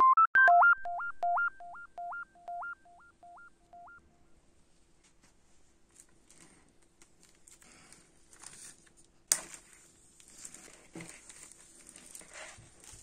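A short synthesizer jingle of stepping beeps that echo and fade away over the first four seconds. Then clear plastic shrink wrap crinkles and rustles as it is torn and peeled off an LP sleeve, with a sharp crackle about nine seconds in.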